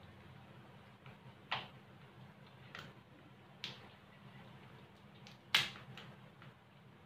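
Scattered sharp clicks and taps of cooked mud crab shell being picked apart by hand, about five in all, the loudest a little past halfway, over a low steady hum.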